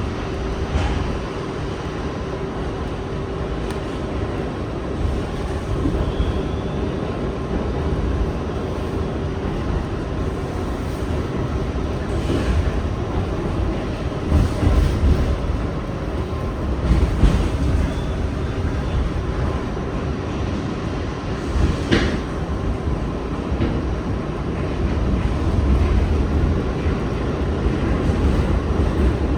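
New York City R68 subway train running on the rails: a steady low rumble with a few sharp wheel clicks over rail joints.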